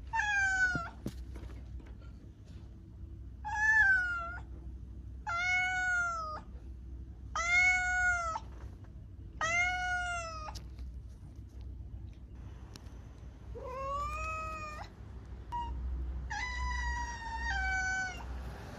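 Domestic cat meowing repeatedly, about seven drawn-out calls roughly two seconds apart, each rising and falling in pitch.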